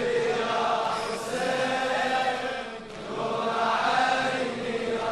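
Male voices chanting long, held vocal lines of a Shia latmiya. The chant comes in two phrases, with a brief dip about three seconds in.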